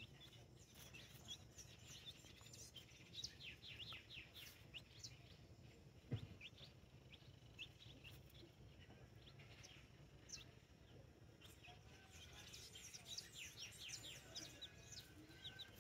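Faint peeping of young chicks: runs of short, high, falling cheeps. A single soft knock about six seconds in.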